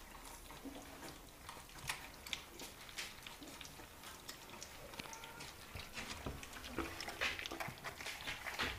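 Two-week-old American Bully puppies eating raw meat: soft wet smacking and chewing clicks, irregular and continuous, with a few short squeaks and grunts.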